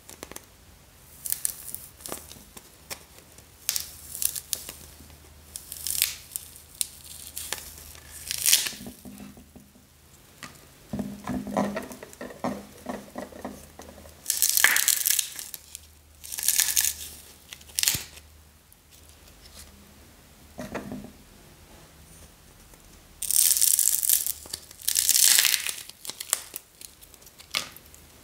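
Small dried clay balls being pulled apart by hand: a series of short tearing bursts with pauses between, the longest and loudest in the middle and near the end.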